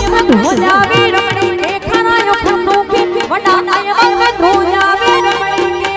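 Instrumental interlude of live Gujarati folk dance music for dandiya raas: a melody with bending, gliding notes over a steady drone, driven by fast, regular hand-drum strokes.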